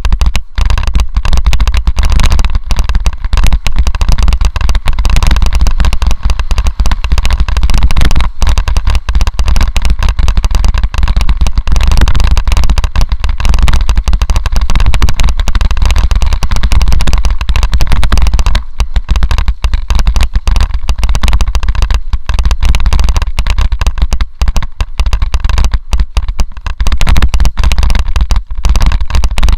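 Mountain bike descending a rough forest dirt trail, picked up by a bike-mounted action camera: a constant dense rattle and clatter of knocks from the bike and trail, over a low wind rumble on the microphone. It is loud and near clipping.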